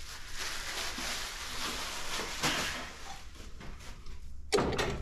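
Packing material being pulled off a new metal-cutting chop saw, a steady rustling and scraping, with a sharp knock and brief clatter near the end.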